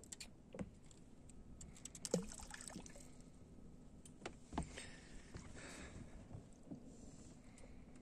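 Faint handling sounds of fishing tackle on a small boat: a handful of light clicks and knocks from rod, reel and gear, the loudest about two seconds in, over soft water noise and a faint steady hum.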